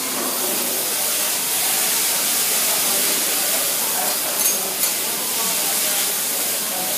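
Bean sprouts sizzling on a hot teppanyaki iron griddle: a steady hiss of frying and steam, with two short metal spatula clicks against the griddle about four and a half seconds in.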